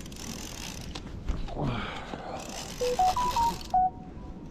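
A short electronic jingle of five or six clear beeps, stepping up in pitch and then back down, about three seconds in. Underneath is a rustling hiss of the rod and baitcasting reel being handled.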